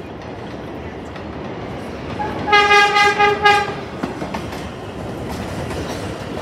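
R142 subway train sounding its horn in about three short blasts as it comes into the station, over the steady rumble of the train running in on the elevated track.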